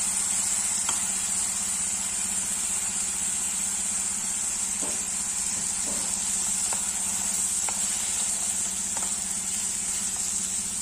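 Basmati rice and peas sizzling in oil in an aluminium pressure cooker as they are stirred gently with a wooden spatula, with a few light taps and scrapes of the spatula. A steady hum and high whine run underneath.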